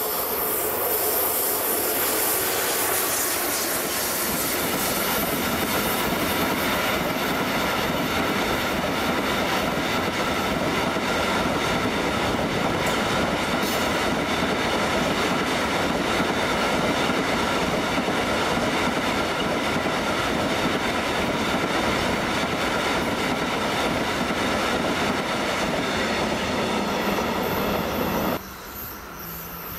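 Class 242 electric locomotive hauling a long train of tank wagons past close by. The wheels give a steady rolling rush, with a few high ringing tones held over it. Near the end the sound cuts off abruptly to much quieter background.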